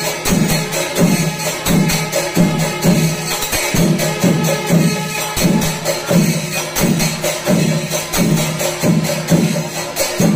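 Kerala temple percussion ensemble playing: drums beat a steady pulse about one and a half times a second under a continuous clash of small hand cymbals.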